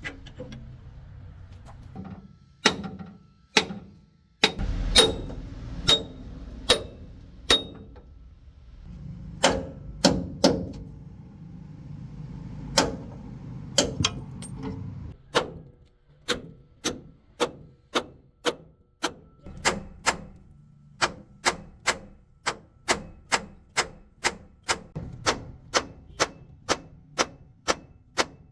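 Hammer blows on steel during truck leaf-spring work. The blows are irregular at first, then settle about halfway into a steady run of roughly two strikes a second.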